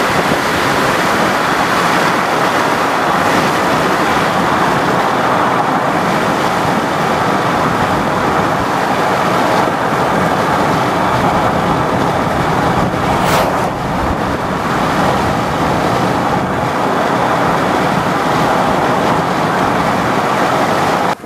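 Steady rush of wind and road noise through the open window of a moving vehicle, with strong storm winds buffeting the microphone. A brief thin high-pitched sound cuts through about two-thirds of the way in.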